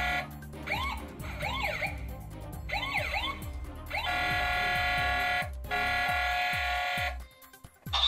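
Toy fire truck's electronic sound effects set off by its roof buttons. A steady electronic horn blare ends just after the start, then a wailing siren runs for about three seconds, then the horn sounds twice more, over background music.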